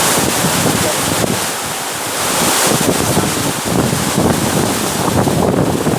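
Heavy downpour of rain with strong gusty wind, the wind rumbling unevenly on the microphone.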